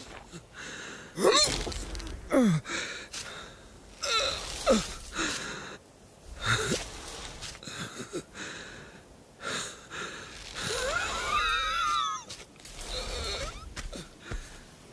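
A sheep character's wordless voice: wheezy breaths and several short falling vocal sounds, then a longer wavering vocal sound about eleven seconds in.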